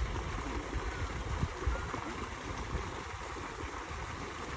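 Steady rush of water pouring from an inlet pipe into a fish pond, with a low rumble underneath.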